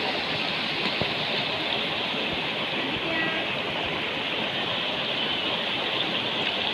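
Steady rush of water from a rocky mountain river, a constant even noise.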